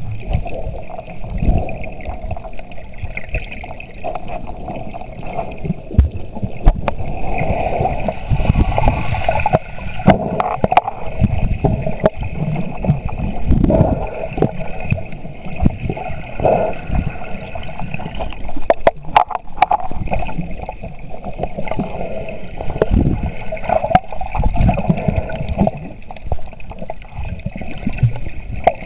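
Muffled water sloshing and gurgling picked up by a camera underwater, in irregular low surges, with a few sharp clicks about ten seconds in and again about nineteen seconds in.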